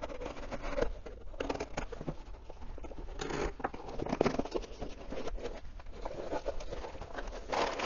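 Packing tape and cardboard being torn open by hand on a shipping box: irregular scratching, ripping and rustling of tape and cardboard.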